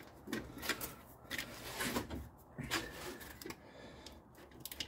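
Plastic wiring connector on an alternator being worked loose by hand: a series of irregular sharp clicks and knocks as the pinch tab is pressed and the plug is wiggled.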